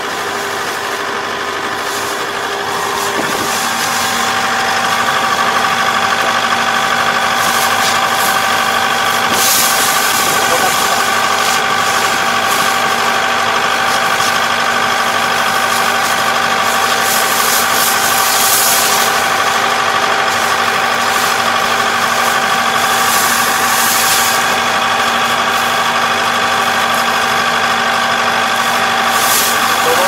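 Kubota ER470 combine harvester running steadily while its header takes in typhoon-flattened rice. About three to four seconds in the machine grows louder and a steady high whine joins the engine hum.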